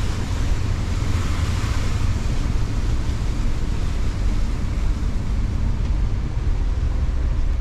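Winnebago motorhome driving on a wet, partly flooded road, heard from inside the cab: a steady low rumble of engine and road, with a hiss of rain and water spray that is strongest in the first couple of seconds.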